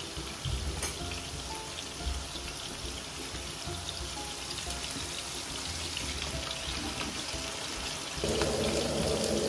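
Potato chips deep-frying in a pan of hot oil, a steady sizzle, under background music. The sound gets louder about eight seconds in.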